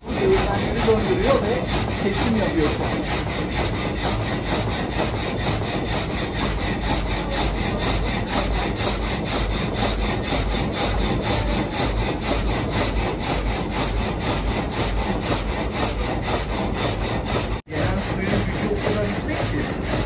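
Water-powered frame saw, a single vertical blade in a wooden sash, sawing lengthwise through a log with a steady, even rasp of about two strokes a second. A brief break comes near the end.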